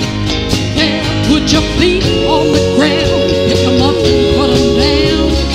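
Acoustic country band playing, with a steadily strummed acoustic guitar. A lead melody holds one long note from about two seconds in, stepping slightly lower near the end.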